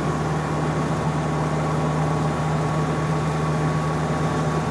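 Land Rover engine and road noise droning steadily inside the cab at motorway speed, a strong low hum with a faint high whine over it.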